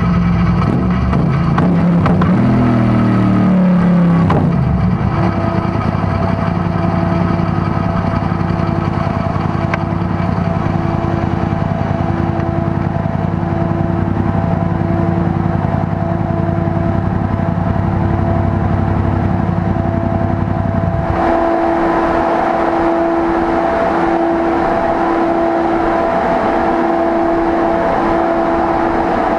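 Yamaha MT-07's parallel-twin engine with an Akrapovič titanium exhaust, running on a dyno: a brief rev about two to four seconds in that drops back to a steady idle. About 21 seconds in the engine cuts off, and a steady fan whir carries on alone.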